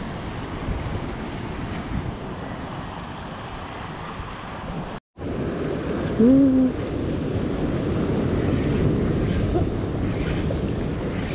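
Ocean surf washing over shore rocks, with wind buffeting the microphone. The sound drops out for an instant about five seconds in, and a short low hum, like a person's voice, follows about a second later.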